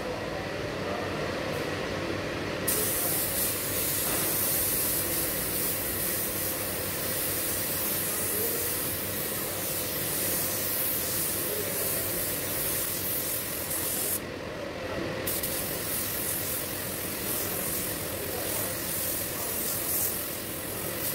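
Gravity-feed air spray gun hissing as it sprays primer onto a car fender, in long passes. The hiss starts about two and a half seconds in and breaks off for about a second around the middle, over a steady background noise.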